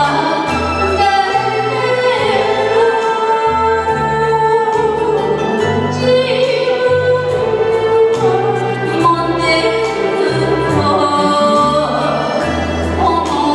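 A woman singing an enka song into a microphone over a karaoke backing track, holding long, wavering notes.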